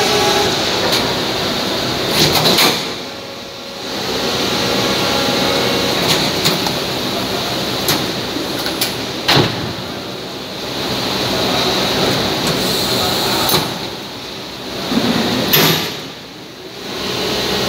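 Chen Hsong SM 850T hydraulic injection moulding machine running through its cycle: a loud, steady mechanical hum and hiss, broken by sharp clunks and knocks at intervals as it moves. The noise drops away briefly several times.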